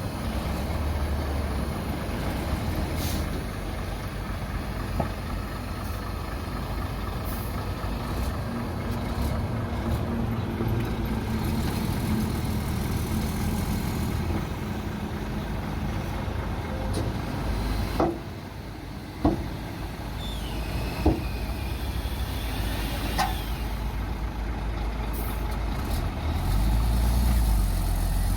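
Heavy diesel engine of earthmoving machinery running steadily, with a few sharp knocks or clanks in the second half.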